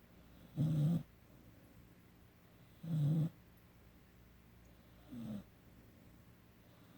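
Rottweiler–Mastiff cross puppy snoring in its sleep: three snores about two seconds apart, the third shorter and quieter.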